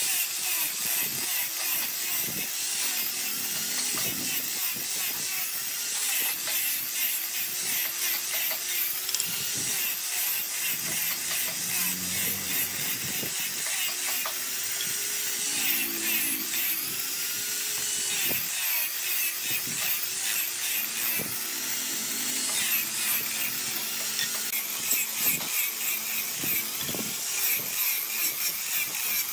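Small angle grinder fitted with a sanding disc, running steadily while sanding a curved wooden chair part; the sound of the disc on the wood is mostly high-pitched.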